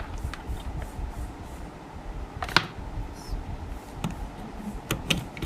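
Small clicks and knocks of a repaired Apple laptop charger being handled and plugged in for a test, with one sharp click about halfway through and a few lighter ticks near the end, over a low handling rumble.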